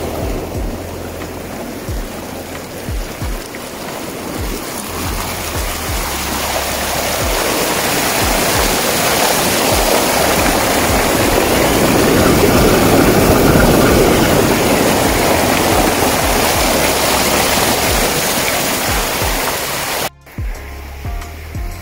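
Waterfall pouring and splashing over rocks: a steady rushing that swells to its loudest about halfway through and cuts off sharply near the end. Background music with a low, steady beat runs underneath.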